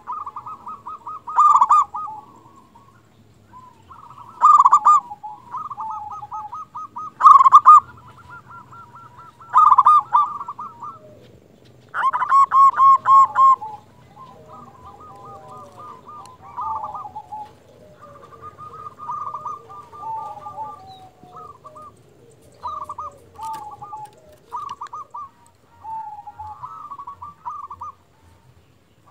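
Local zebra dove (perkutut) cooing repeatedly in rapid rolling, pulsed phrases. Loud phrases come every few seconds in the first half, then quieter coos follow in the second half.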